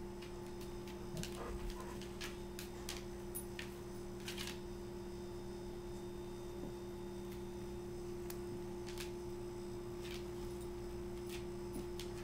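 A steady electrical hum, with scattered light clicks and taps from a dog's claws and a kitten scuffling on a tile floor as they play, most of them in the first few seconds.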